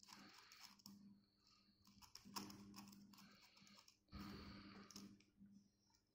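Faint plastic clicks and rattles of a Mini 4WD kit chassis being turned over and handled, over a low steady hum.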